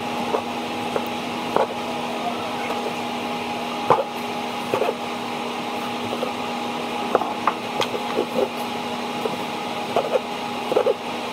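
Knife chopping salad on a cutting board: irregular knocks about once or twice a second, over a steady hum.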